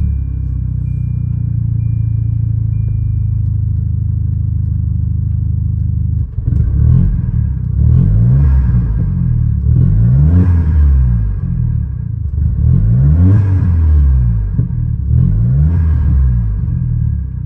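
Volvo 740's engine running at a steady idle, then revved up and let back down about four times from six seconds in.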